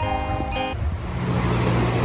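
Background music with held notes that stops under a second in, followed by a steady low hum of room noise.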